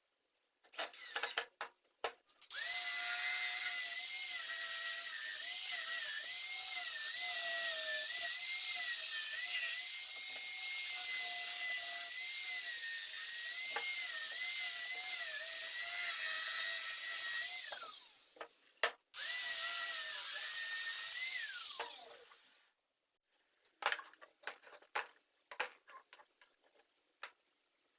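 A small electric power tool running at high speed, its whine dipping and recovering as it works under load for about fifteen seconds. It stops briefly, runs again for a few seconds, then is switched off and winds down, falling in pitch. Light clicks and knocks of handling before and after.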